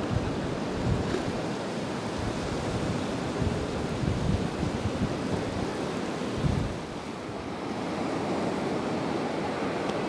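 Surf washing onto a sandy beach, with wind rumbling on a small clip-on microphone held in the open; the wind rumble eases about two-thirds of the way through.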